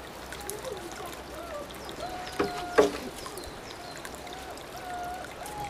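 5½-week-old Belgian Malinois puppies giving short, thin whines and squeaks as they tussle over balls, with two sharp knocks about halfway through and high bird chirps in the background.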